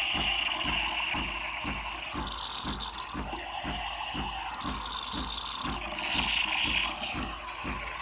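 Espresso machine steam wand hissing into a stainless pitcher of milk, frothing it for a cappuccino, with a regular low pulsing from the machine about four times a second underneath.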